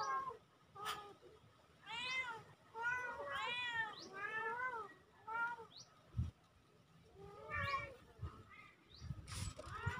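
Kittens meowing over and over: about eight short, high-pitched meows, each rising then falling in pitch.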